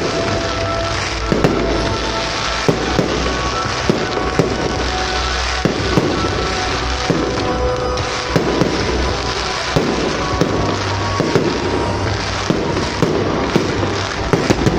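Fireworks display: shells bursting and crackling with sharp bangs about once a second, over a loud music soundtrack.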